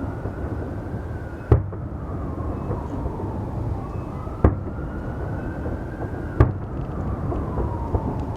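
Fireworks bursting: three sharp bangs a couple of seconds apart over a steady low rumble, with a faint wailing tone that slowly rises and falls.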